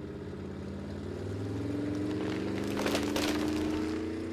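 Motor vehicle engine running steadily, its pitch slowly rising, as the camper van drives away.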